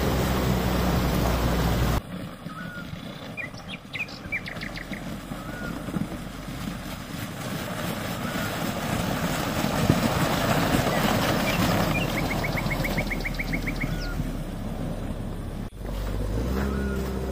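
A Rosomakha Extreme Plus ATV's engine running as it drives through meltwater and slush on a snowy trail. Loud and close for the first two seconds, then quieter and farther off, swelling again about ten seconds in and close again near the end. Birds chirp in short trills.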